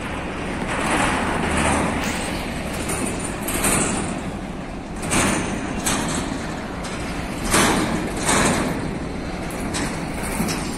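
Empty freight train's wagons rolling past on steel wheels: a steady rumbling, clattering rush from wheels on rail, with a few louder surges.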